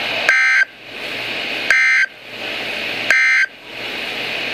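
Three short bursts of EAS/SAME digital data tones from a NOAA Weather Radio broadcast, about 1.4 s apart, with radio hiss between them. This is the end-of-message (EOM) code that closes the weekly test.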